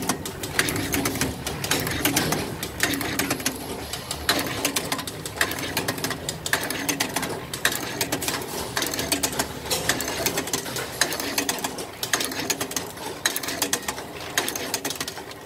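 EE Electro Controls coil taping machine running, its rotating tape head wrapping yellow tape around small bobbin coils one after another: a continuous mechanical whir with a rapid, uneven stream of sharp clicks and a low hum that swells and fades in short cycles.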